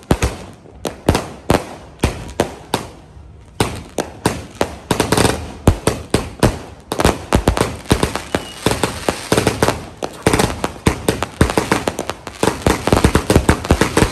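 Dragon Fireworks 'Crown of Ages' 82-shot firework cake firing: a loud, unbroken string of launch thumps and aerial shell bursts, coming faster and denser from about halfway.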